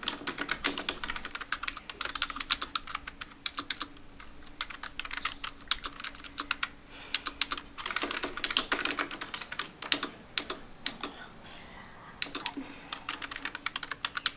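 Fast typing on a computer keyboard: dense, irregular key clicks with a couple of brief lulls.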